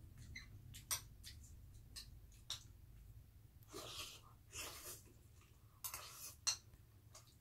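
Quiet eating sounds of rice soaked in water being eaten with a spoon: a few light clicks of the metal spoon against the plate, and short breathy slurps and breaths as spoonfuls go to the mouth, the loudest near the middle.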